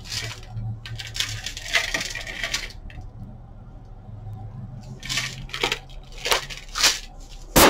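Handling noise from a large food storage can with a snap-on plastic lid being turned over in the hands: rubbing and scraping for the first few seconds, then a quieter stretch, then a few short scrapes and a sharp click near the end.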